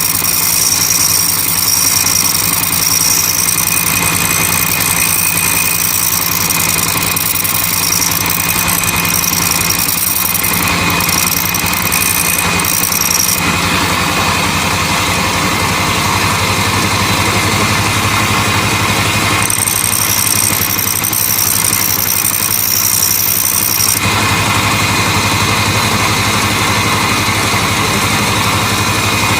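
Electric grinder running loudly with a steady motor hum while a steel blender blade is ground against the wheel, a high-pitched grinding tone sounding for the first dozen or so seconds, stopping, and returning briefly past the middle.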